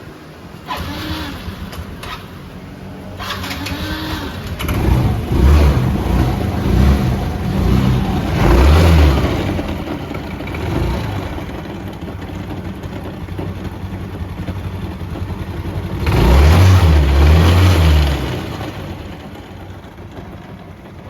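Yamaha RSZ100 two-stroke scooter engine starting and then revved in several bursts, with steady running between the revs, to bring out a transmission noise.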